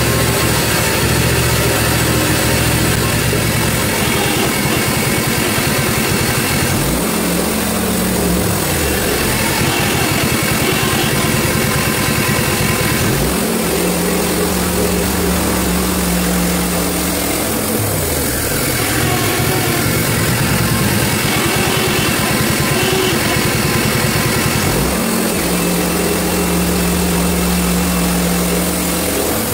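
Hud-son Homesteader HFE30 bandsaw mill's engine running steadily; three times its speed steps up and is held for a few seconds before dropping back.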